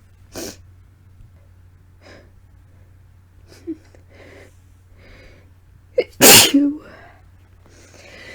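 A woman sneezing: quiet sniffs and catching breaths build up over several seconds, then one loud, wet sneeze bursts out about six seconds in. It is set off by a tickly, itchy nose.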